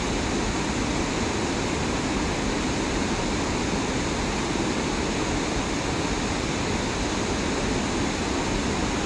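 Steady rushing of river water pouring over a dam and churning below it, an even noise with no breaks.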